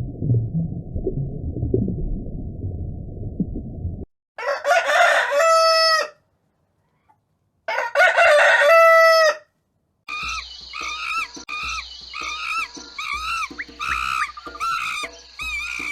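A low, muffled noise for about four seconds, then a rooster crowing twice, each crow nearly two seconds long. Then comes a run of short, repeated calls over a steady high whine.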